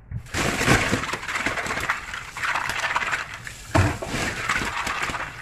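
Clams being stirred and rubbed by hand in a stainless steel sink under a running tap: shells clattering and clinking against each other and the sink, with water splashing, and a couple of louder knocks about a second in and near the end.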